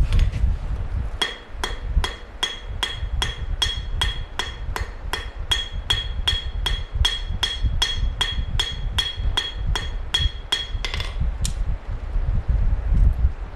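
Light hammer tapping hot steel on an anvil in quick, even blows, about two to three a second. Each blow rings with a bright metallic ping as the edge of a forge-welded blade blank is worked in. The hammering stops a couple of seconds before the end, then starts again.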